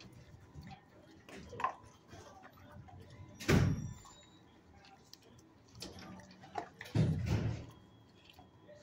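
Dog barking in a shelter kennel room: a few single barks, the loudest about three and a half seconds in and another about seven seconds in.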